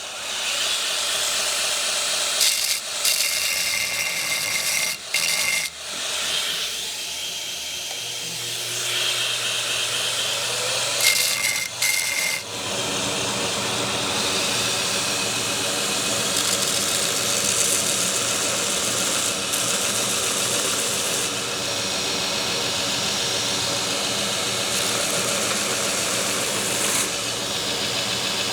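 Belt grinder running a coarse 36-grit belt against the spine of a forged W2 steel knife blade: a steady rasping hiss of steel on abrasive over the motor's hum. The blade is eased off the belt briefly a few times in the first dozen seconds, then held on steadily.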